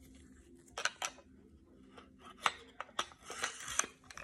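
Metal clicks and scraping as the slide of an HK P30 pistol is fitted back onto its frame and slid along the rails: two sharp clicks about a second in, then scattered clicks and a brief sliding scrape a little after three seconds.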